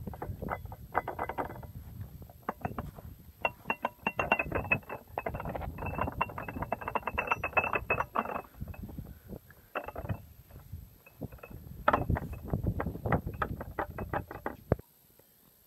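Dense, irregular metallic clicking and rattling from a rotary mower's gear train being worked by hand: spur gear teeth knocking together and ball bearings rattling, bearings the owner finds worn out and never greased. A thin steady high tone runs through the middle, and the clicking stops just before the end.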